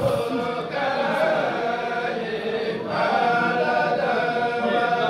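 A kourel: a group of men chanting a xassida, a Senegalese Sufi religious poem, together in long, drawn-out sung lines.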